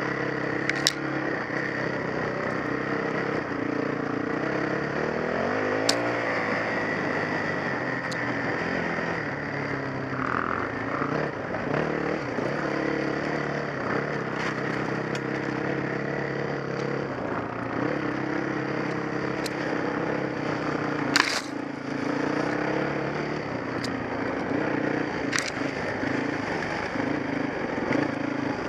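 Off-road dirt bike engine running over rough trail, its revs rising and falling with the throttle, with a few sharp knocks and clicks from the bike over the ground.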